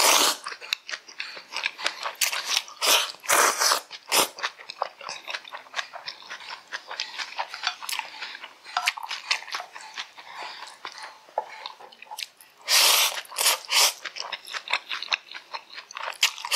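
Close-miked eating of black bean noodles: long slurps of noodles at the start, around three to four seconds in and again about thirteen seconds in, with wet chewing and mouth smacks in between.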